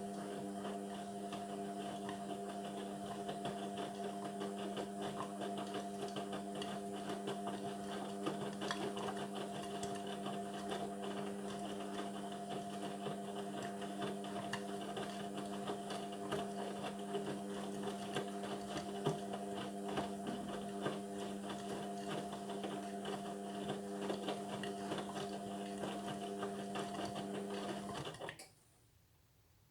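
Indesit washing machine running mid-cycle on a synthetics wash: a steady motor hum over the rustle of the turning drum. It cuts out suddenly near the end.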